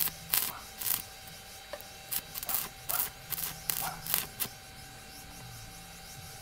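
Short scraping, crackling bursts from work on a welded steel rebar frame, about a dozen of them over the first four and a half seconds.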